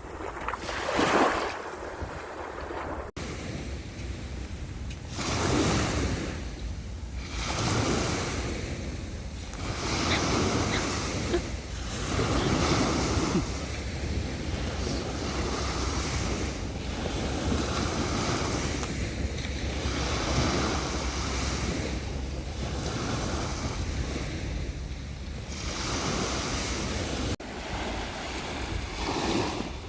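Ocean waves breaking and washing up a beach, the surf swelling and falling every second or two, with wind rumbling on the microphone.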